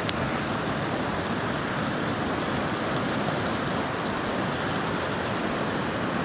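Steady rush of river water flowing over rocks, an even noise that does not change.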